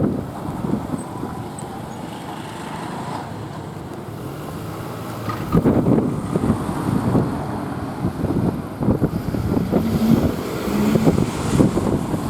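A vehicle passing: a steady low rumble, then louder, irregular knocking and rumble from about five seconds in.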